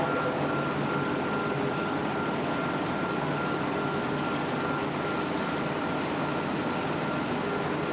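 Heavy diesel engine of the concrete-pouring machinery running steadily, with a thin, steady high whine over it.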